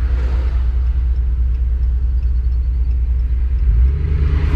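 2015 Ram 1500's 5.7 L Hemi V8 with a muffler delete and Y-pipe, heard inside the cab while driving: a steady deep exhaust drone. About three and a half seconds in, its pitch steps up and it gets a little louder as the engine speeds up.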